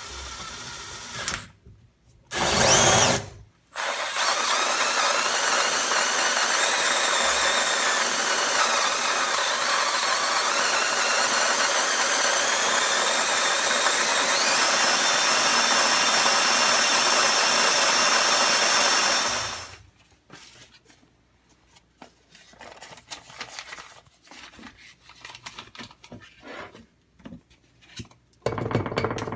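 Coffee grinder grinding beans in one steady, loud run of about sixteen seconds after a short first burst, stopping abruptly; then scattered small clicks and taps.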